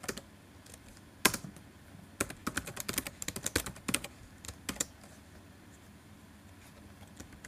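Typing on a computer keyboard: one keystroke about a second in, then a quick run of keystrokes lasting about three seconds.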